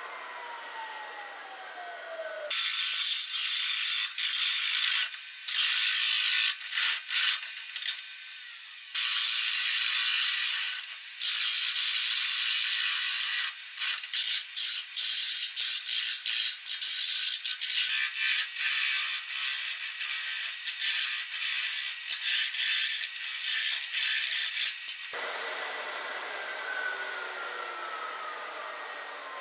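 Turning tool cutting a spinning wood blank on a wood lathe: a loud hiss of cutting in long passes at first, then many short choppy cuts, stopping about 25 seconds in. The lathe's steady running hum is left at the start and end.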